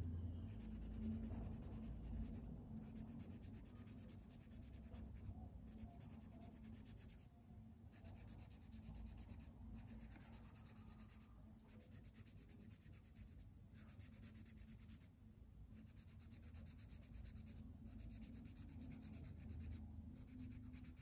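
Blue felt-tip marker scribbling faintly on paper, colouring in grid squares with continual short strokes and brief pauses every couple of seconds.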